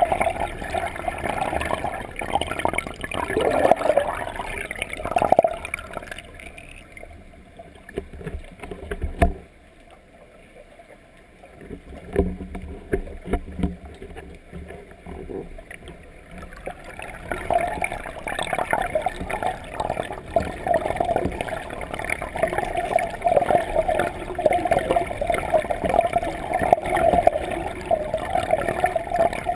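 Pool water heard underwater through a camera's waterproof housing: muffled, uneven swirling and gurgling. It drops quieter for several seconds partway through, and there is a single sharp knock about nine seconds in.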